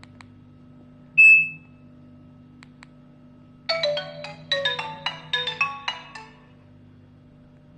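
A 2013 Nokia 105 phone's speaker plays a ringtone preview: a quick run of short, marimba-like notes lasting about two and a half seconds, starting a little past the middle. Before it come a few faint button clicks and, about a second in, a single short loud beep.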